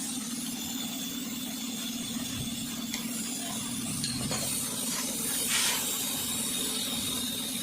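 A steady mechanical hum with a short burst of hiss about five and a half seconds in.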